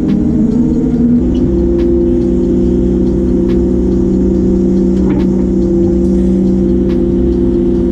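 Combine harvester running steadily while cutting corn, a constant machine hum whose pitch shifts and settles about a second in, with a few faint ticks on top.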